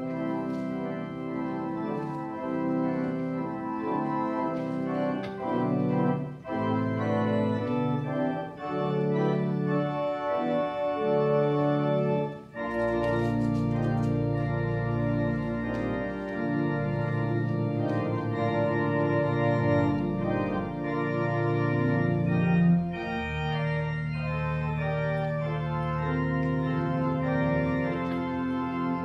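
Organ playing slow sustained chords over a moving bass line. After a brief break about halfway through, a deeper bass comes in.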